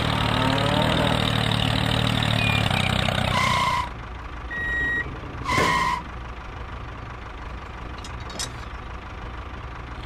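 Tractor engine idling steadily, dropping to a quieter idle about four seconds in. Two short beeps sound around the drop.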